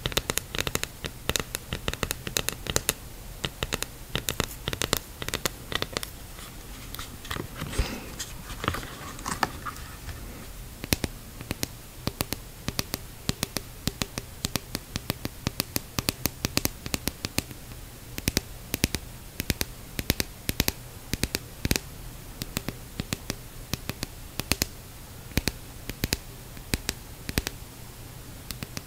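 Long fingernails tapping quickly and irregularly on hard clear plastic, first a dive mask and then a Cressi snorkel tube. The taps come as dense, crisp clicks, with a few seconds of scratching and rubbing on the plastic about a third of the way in.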